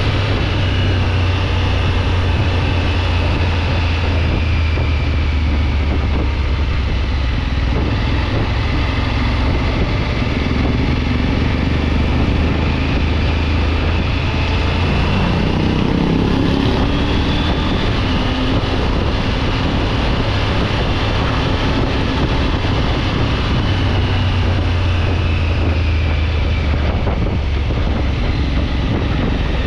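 Triumph Tiger 900 GT Pro's inline three-cylinder engine running steadily while riding, with wind and road noise on the microphone. The engine note shifts briefly about halfway through.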